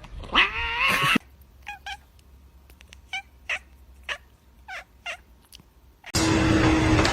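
A cat's loud, drawn-out meow rising in pitch, followed by about six short, quieter meows spread over the next few seconds. Music starts abruptly about six seconds in.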